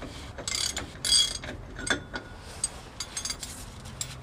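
Ratchet wrench clicking in two short rasping bursts as the large outer axle nut on a heavy truck's rear hub is turned off. A few light metallic clicks follow.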